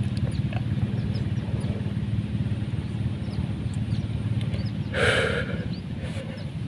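An engine running steadily, a low drone with a fast, even pulse, and a short noisy rush about five seconds in.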